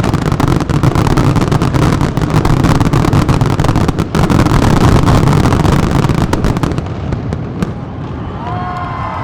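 Fireworks display: a dense barrage of rapid, overlapping bangs and crackles over a continuous low rumble, thinning out about seven seconds in. Near the end a crowd starts cheering and whistling.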